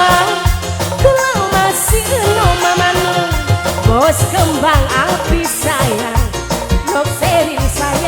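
Live tarling dangdut music: an ornamented melody that slides and wavers in pitch over a steady beat of drums and bass.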